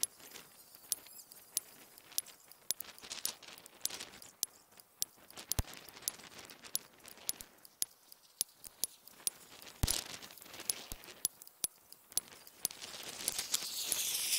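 Air rifle with a moderator fired shot after shot, its action cycled between shots: a fast, uneven run of sharp clicks and cracks, several a second, with a hiss rising near the end.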